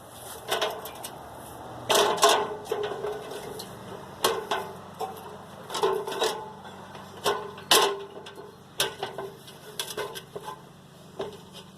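Irregular knocks and clanks, some with a short metallic ring, as someone climbs up onto a metal baler frame.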